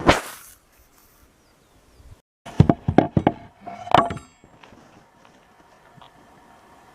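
Hard objects knocked and set down: a brief rustling clatter at the start, then a quick run of about five sharp knocks and clacks around the middle.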